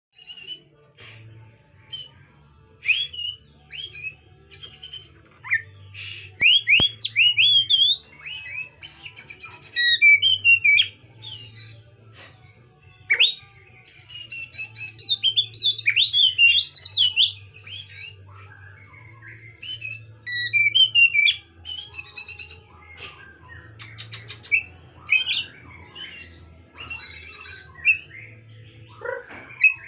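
Oriental magpie-robin singing: a varied run of loud whistled phrases with rising and falling glides, coming in bursts separated by short pauses.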